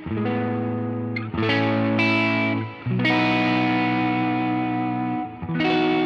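PRS SE Custom 22 Semi-Hollow electric guitar on both humbuckers through a low-gain overdrive: four chords struck one after another, each left to ring.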